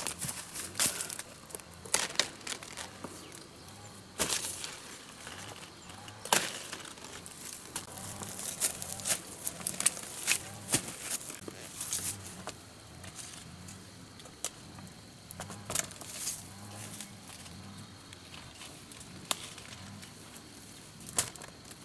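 Leafy branches rustling, with irregular snaps and sharp crackling clicks of leaves and twigs being handled.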